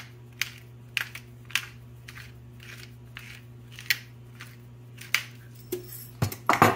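Hand-turned pepper mill grinding peppercorns, a gritty crunch with each twist, about every half second. A louder clatter comes near the end.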